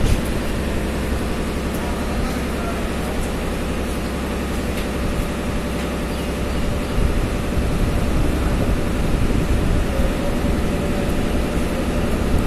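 An engine running steadily close by, a low rumble that grows a little louder about seven seconds in, with faint scraping as a raw green mango is shaved into strips with a blade.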